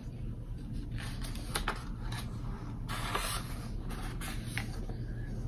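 A page of a picture book being turned by hand: a few soft paper rustles, then a longer swish of the page about three seconds in, over a low steady hum.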